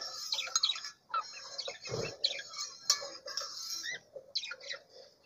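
Spoon stirring water in an enamel pot, clinking and scraping against the sides in short, irregular knocks, with birds chirping throughout.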